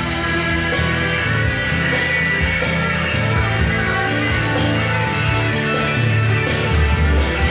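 Stratocaster-style electric guitar picked, playing a melodic lead line of a worship song over a full, steady accompaniment with sustained low notes underneath.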